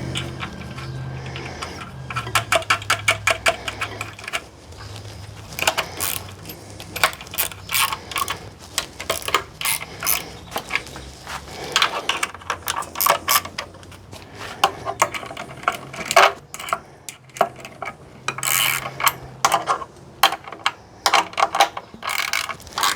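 Ratchet wrench clicking in quick runs with short pauses between them as bolts are run in and tightened on an adapter plate.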